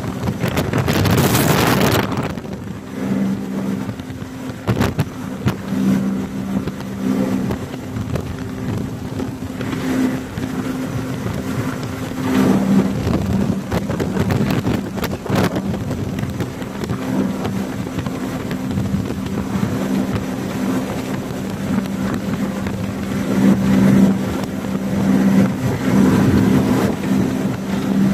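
Jet boat under way at speed: a steady engine drone under the rush of wind on the microphone and water spray, with a strong gust of wind noise in the first couple of seconds.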